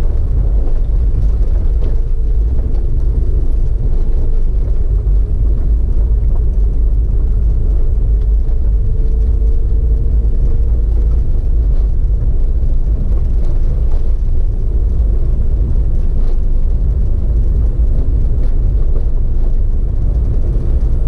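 Vehicle on the move: a steady, loud low rumble of wind and road noise, with an engine drone underneath that wavers slightly in pitch.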